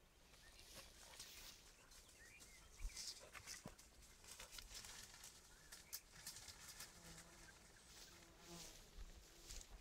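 Faint rustling and scattered twig snaps from movement through dense undergrowth.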